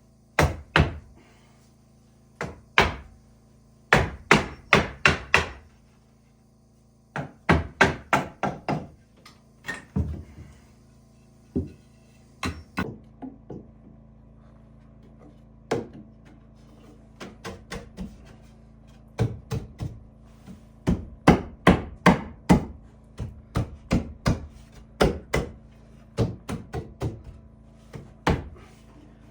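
Hammer blows on wood, in short runs of quick strikes with pauses between.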